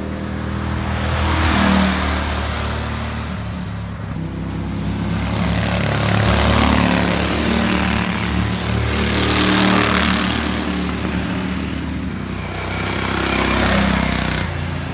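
Racing lawnmower engines running hard as the mowers pass by, the sound swelling and fading about four times as each one goes past.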